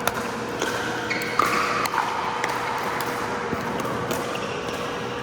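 Pickleball rally in an indoor hall: sharp pops of paddles hitting the plastic ball, the loudest about a tenth of a second and a second and a half in, with a few short squeaks between them and a steady hum underneath.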